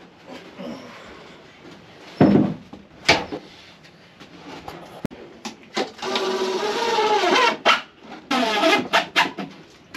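A plywood box knocks down onto a bench about two seconds in, followed by a few handling clicks. Then a cordless drill drives screws into the plywood: one run of about a second and a half, and a shorter stop-start run near the end.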